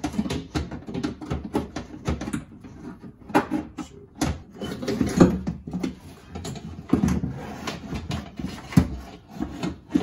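Irregular clunks, knocks and rattles of a power window motor and regulator assembly being handled and worked into the inner panel opening of a Nissan Xterra's front door, knocking against the door shell; the sharpest knocks come about four, five, seven and nine seconds in.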